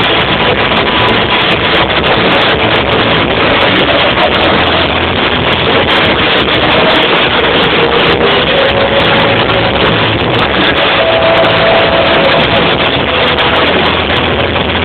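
Live rock band playing loudly, with drums and electric guitars. The recording is overloaded, so the music blurs into a steady distorted noise, with a few held guitar notes through the middle.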